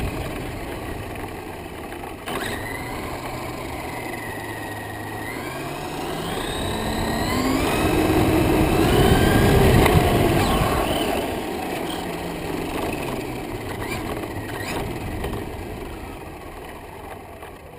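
Radio-controlled model airplane's motor and propeller whining as the plane makes a pass. It grows louder to a peak about nine to ten seconds in, its pitch gliding up and then down, and fades away near the end.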